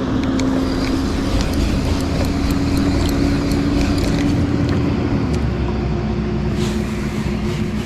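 Boat motor running steadily under a hiss of water and wind; its hum drops slightly in pitch about five seconds in.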